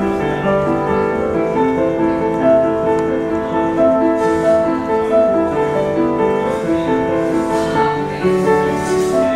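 Background music: a slow keyboard piece, likely piano, with long held notes overlapping one another.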